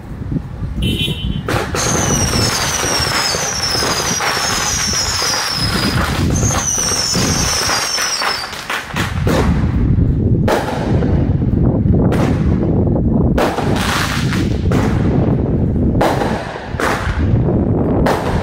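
Fireworks going off: a dense rapid crackle with a string of falling whistles in the first half, then a run of loud sharp bangs over a low rumble.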